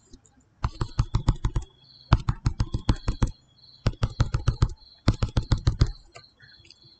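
A pen stylus tapping quickly on a tablet screen as short dashed strokes are drawn, in four runs of rapid clicks.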